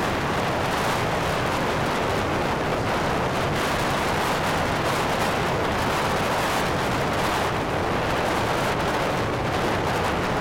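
Heavy storm surf breaking and sloshing over and around a jetty, with strong wind, as one steady, loud roar.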